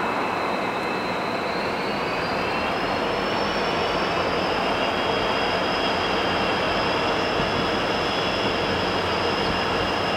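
Union Pacific freight train rolling past: a steady, loud rush of wheels on rail, with a thin high whine from the wheels that rises slightly about two to three seconds in and then holds.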